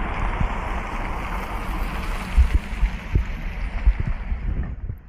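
Sea water washing and splashing at the shore in a steady rush that fades near the end, with wind buffeting the microphone in low thumps.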